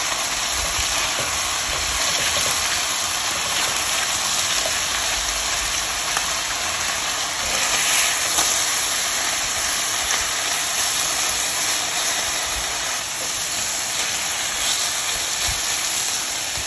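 Beef liver pieces frying in vegetable oil in a Staub enamelled cast-iron braiser: a steady, hissing sizzle.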